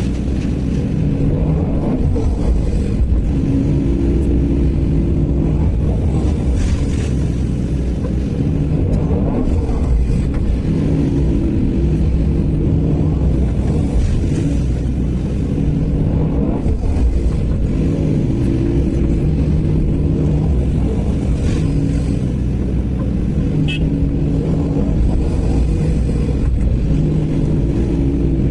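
Sany SY215C excavator's diesel engine running steadily under work load, its pitched tone swelling and easing every several seconds as the hydraulics work through the loading cycle.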